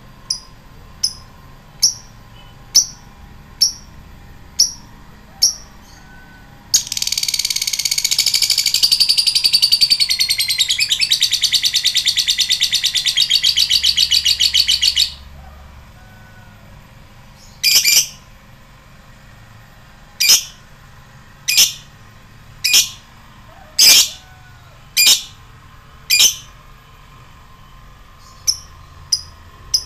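Lovebird, a blue masked lovebird, calling. It starts with short sharp 'ngetik' ticks about once a second, then breaks into a long, very rapid rattling 'ngekek' trill for about eight seconds. After that come louder single calls about one every second, and short ticks again near the end.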